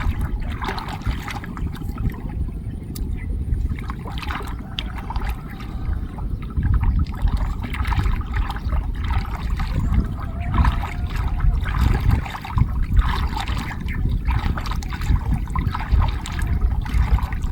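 Water splashing and trickling irregularly as a gill net is hauled up out of floodwater, over a steady low rumble.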